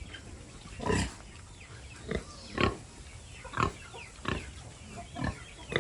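Pigs grunting: a series of short grunts, roughly one or two a second.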